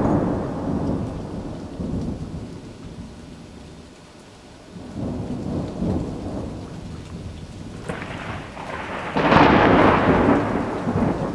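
Thunder rolling over steady rain. A loud peal at the start rumbles away, a smaller roll follows about halfway through, and a sharp crack near the end leads into the loudest, longest rumble.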